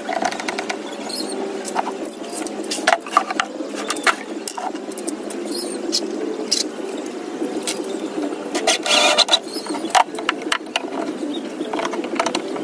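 Irregular sharp clicks and knocks as one-handed bar clamps are ratcheted tight on a small wooden frame and the wood is handled, with a denser rattling stretch about nine seconds in. A steady low drone runs underneath.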